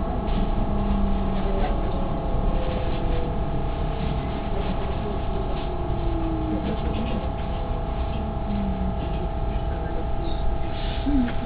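Interior running noise of an S-Bahn electric train in motion: a steady rumble with a constant electrical hum of several tones, and a faint whine that falls slowly in pitch a couple of seconds in.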